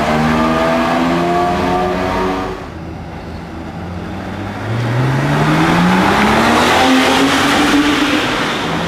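Supercar engines accelerating hard in a road tunnel. One engine revs upward and cuts off abruptly about two and a half seconds in. After a quieter stretch, another engine begins a long rising acceleration about five seconds in and is loudest near the end.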